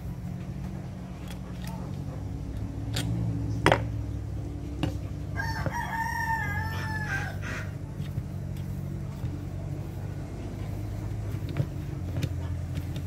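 A rooster crows once, a wavering call of about two seconds near the middle, over a steady low hum. Scattered sharp clicks and taps of a tool on the metal starter-motor housing come through around it; the loudest tap comes just before the crow.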